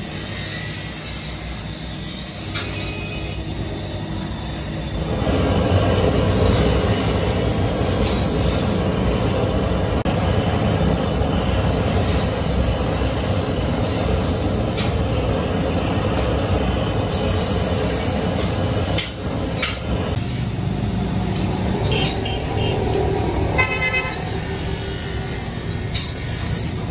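Steady street traffic noise that grows louder about five seconds in, with a vehicle horn tooting briefly near the end.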